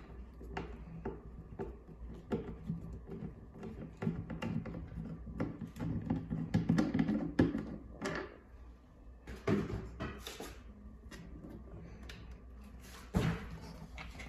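A screwdriver turning a screw on a black plastic fibre-optic distribution box: irregular small clicks and scrapes of the metal bit in the screw head against the plastic, with a sharper knock near the end.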